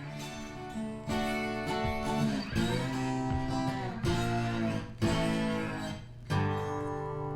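Outro music: an acoustic guitar strumming chords, each strum ringing out before the next one, about every second or so.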